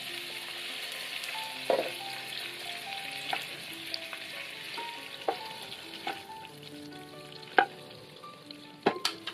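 Pork belly pieces sizzling in hot oil in a nonstick wok, with sharp clicks and taps of metal tongs against the pan as the pieces are lifted out. The sizzle fades as the pan empties.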